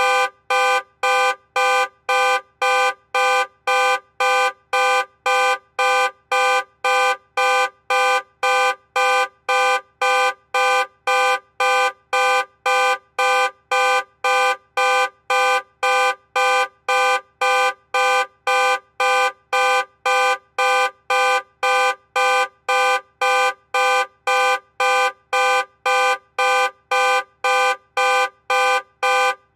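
Car alarm sounding in loud, even on-off pulses at one steady pitch, about two a second, repeating without change.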